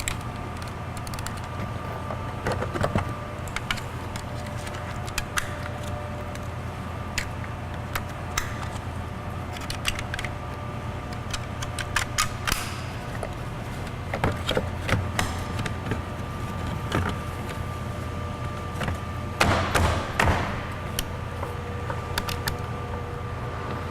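Scattered plastic clicks and knocks of door trim being fitted back onto a GMC Yukon front door, with the power window switch panel clipped into place, over a steady background hum. A short run of louder knocks comes near the end.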